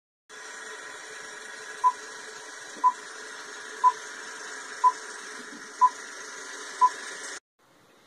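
Old-film countdown leader sound effect: a steady hiss with a short high beep once a second, six beeps in all, then it cuts off suddenly.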